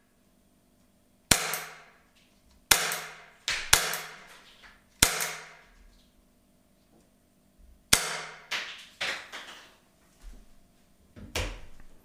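Shots from a CO2-powered Glock 17 Gen5 T4E .43-calibre airgun: five sharp cracks in the first five seconds, two of them close together, each with a short echoing tail. A quicker group of four softer cracks follows a few seconds later.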